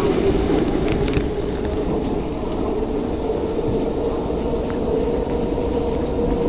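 Water spraying and pouring from the ceiling inside a Washington Metro subway car flooded by a leak, a steady hiss over the car's steady hum.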